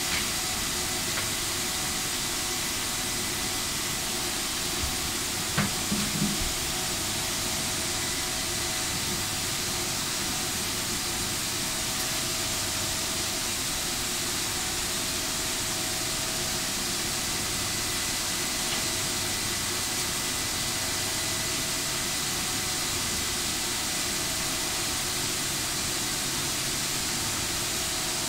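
A steady hiss with faint, constant whining tones in it, and a few low knocks about five to six seconds in.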